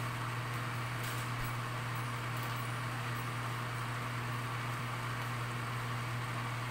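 A steady low hum and hiss of kitchen noise while a pan of tomato sauce simmers on a gas stove, with a few faint crackles from the pan.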